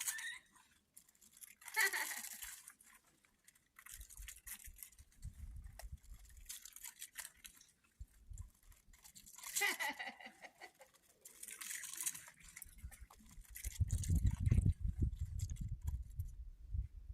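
Footsteps crunching on loose volcanic cinders, in separate gritty crunches a second or two apart. Low wind rumble on the microphone from about two-thirds of the way in.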